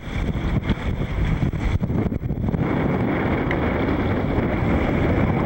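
Wind buffeting the microphone on a small sailboat under sail, a loud rumbling gusty rush, with chop washing past the hull.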